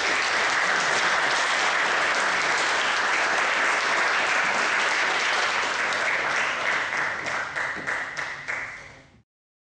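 Audience applauding steadily, thinning out to a few separate claps near the end, then cutting off abruptly about nine seconds in.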